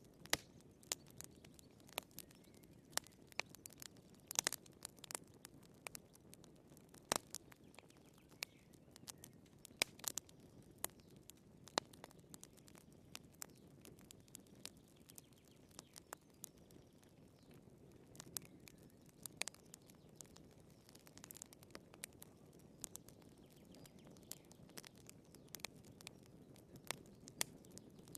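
Wood fire burning in a fireplace, crackling and popping: sharp irregular snaps, several a second, over a soft steady rush of the flames.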